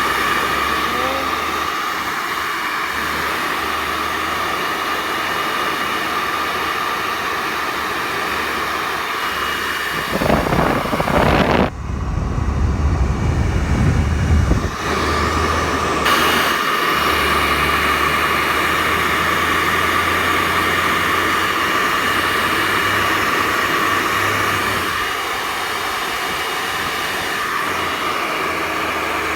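Handheld hair dryer running steadily, its fan and motor giving a loud blowing hiss with a steady whine, blown at a fidget spinner to spin it up. About ten seconds in, a louder low rumble takes over for about five seconds, then the steady blowing returns.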